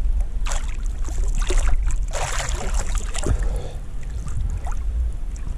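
Lake water splashing and lapping at the waterline right against the microphone, in several irregular splashes with the strongest about two seconds in, over a steady low rumble.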